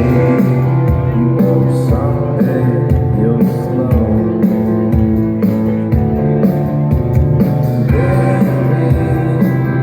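Live rock band playing loudly with electric guitars, bass and drums, and a singing voice, recorded from within the audience at a concert.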